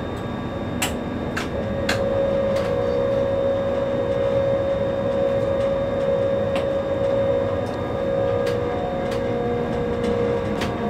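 Running noise inside the driver's cab of an ÖBB Taurus (Siemens ES64U2) electric locomotive at speed: a steady rumble with a steady whine over it and several sharp clicks scattered through.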